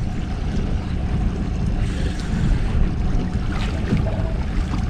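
Steady wind buffeting the microphone, with water washing against a boat hull and a few faint knocks.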